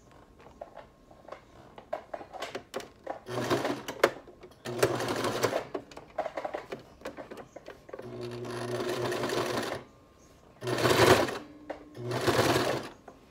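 Brother LS-2125 sewing machine stitching in five short runs of a second or two each, with pauses of small handling clicks between them, as the seam is locked in with back-and-forth stitching.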